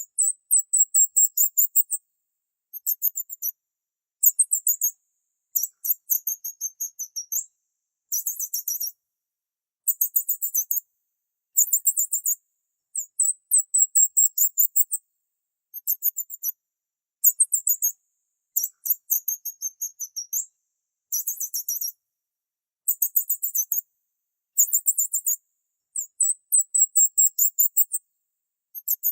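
High-pitched bird chirping: bursts of rapid, very high chirps, each about a second long, repeating every second or two with silent gaps between.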